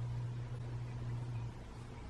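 Steady low hum over a faint hiss, which drops a little about one and a half seconds in.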